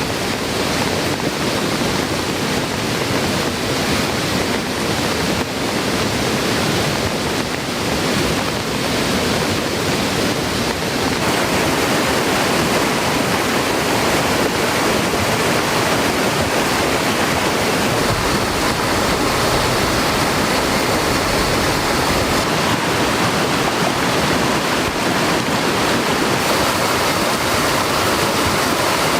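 Steady rushing water of a rain-swollen mountain stream, with heavy rain falling. The rush turns brighter about a third of the way in and fuller in the low end soon after.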